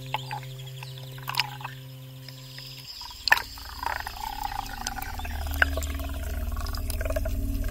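Seawater sloshing and splashing around a camera held at the surface, over a steady low hum that cuts off about three seconds in. The camera then goes under, and the sound becomes a muffled underwater rumble that grows louder, with a fine rhythmic flutter and the pops of bubbles.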